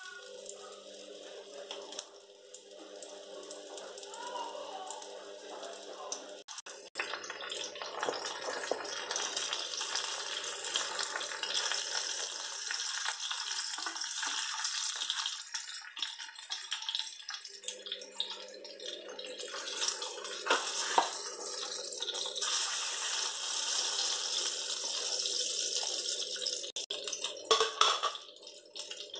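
Flour-dredged salmon fillets sizzling in hot oil in a nonstick frying pan: a steady crackling hiss that grows louder about two-thirds of the way through. A few sharp clicks come near the end.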